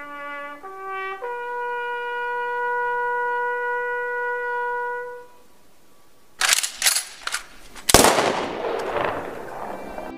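Recorded soundtrack: a trumpet call stepping up over three notes and holding the top one for about four seconds, then gunfire effects, a quick string of shots about six seconds in and a louder bang near the end whose noise trails off.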